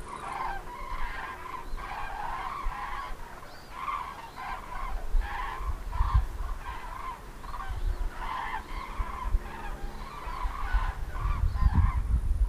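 A flock of common cranes calling in flight: many overlapping, repeated trumpeting calls. A low rumble sits under the calls and is strongest near the end.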